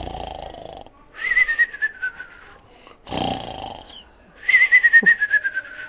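A person imitating cartoon snoring, twice: a rasping in-breath followed by a whistled out-breath that warbles and slides down in pitch.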